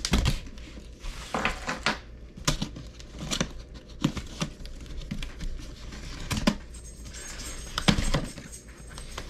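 Cardboard retail box of a Blue Yeti X microphone being opened and handled: irregular clicks, taps and scrapes of the flaps and panels, with a longer sliding rustle near the end.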